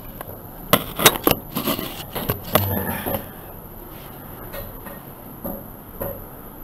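Handling noise on a small camera: sharp knocks and clicks about a second in, then a couple of seconds of rubbing and rustling against the microphone, settling to a few faint ticks.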